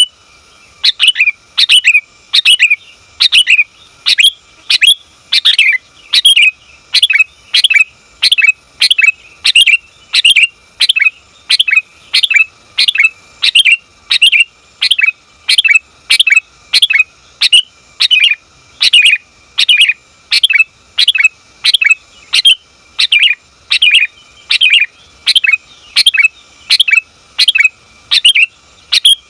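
Female sooty-headed bulbul (kutilang) giving short, sharp calls over and over, about one and a half to two a second, each a quick downward sweep: a call for a male, used as a lure sound.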